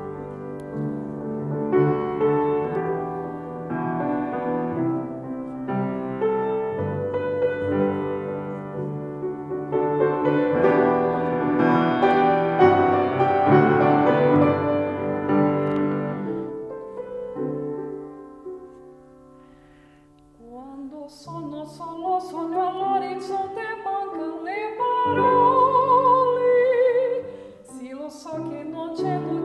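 Grand piano playing a slow chordal introduction that dies away about 18 to 20 seconds in. A woman's voice then comes in singing in operatic style with a wide vibrato, accompanied by the piano.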